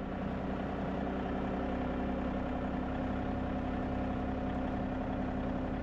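John Deere compact tractor's diesel engine running at a steady speed while it drags a rear blade through soil.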